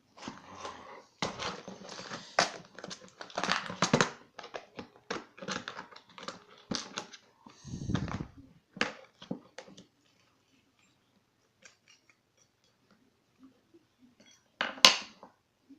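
Small metal lock parts clicking and rattling as a pinned challenge lock is taken apart by hand, with a dense run of clicks for about ten seconds, then a few faint ticks and one sharp click near the end.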